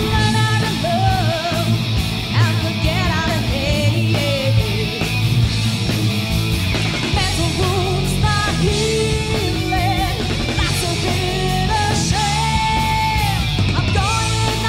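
Live rock band playing: a woman sings the lead vocal over electric guitars, bass guitar and drums, her voice coming in about half a second in.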